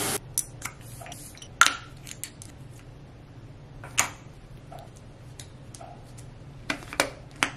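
Scattered light clicks, taps and clinks of small toiletry containers being picked up, opened and set down on a bathroom counter, with a few sharper knocks spread through.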